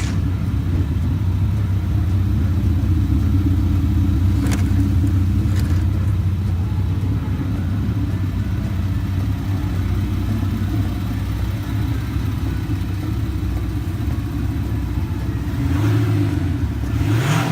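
Volkswagen Amarok idling steadily, with a Kufatec Sound Booster Pro adding a synthetic V8-style exhaust note to the factory exhaust. It swells and the pitch rises in a short rev near the end.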